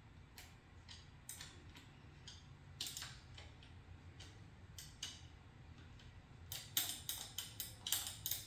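Irregular small sharp clicks and ticks from working on a dirt bike's front brake lever and handlebar controls. They come more thickly in the last two seconds.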